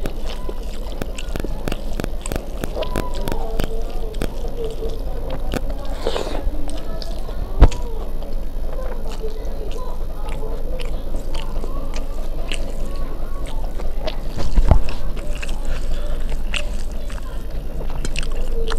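Close-miked eating sounds: fingers squishing and mixing rice and dal on a steel plate, and wet chewing with many small mouth clicks and smacks. A sharp knock about halfway through and a louder thump about three-quarters through.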